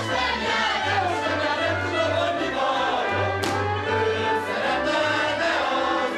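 Hungarian folk dance music: several voices singing over a band, with a steady bass line alternating between two notes.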